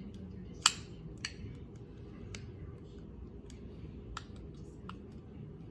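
Small hard plastic toy pieces and packaging being handled: a handful of separate sharp clicks and taps, the loudest less than a second in, over a low steady hum.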